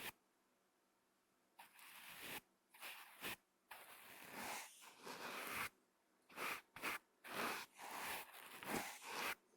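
A brush swept across a microphone in a series of strokes, some brief and some lasting about two seconds, with short silent gaps between them.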